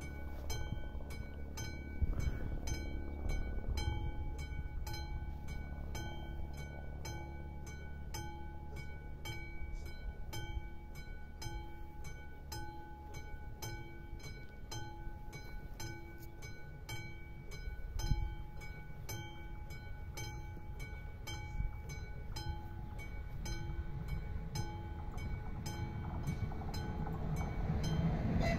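AŽD 71 level-crossing warning bell ringing in regular strokes, a little under two a second, over a steady low wind rumble on the microphone. Near the end the noise of an approaching ČD class 809 railbus rises beneath the bell.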